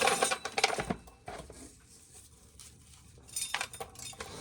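Light clicking and clattering in the first second, then near quiet, with a few more sharp clicks near the end.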